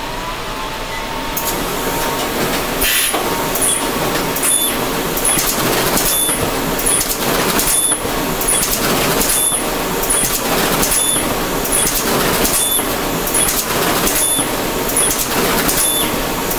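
THERM-O-TYPE NSF Excel die-cutting press with pneumatic inline waste stripper starting up and running. It builds over the first couple of seconds into a steady mechanical run, with a regular cycle of knocks and short hissing puffs repeating about once a second as sheets are die cut and stripped.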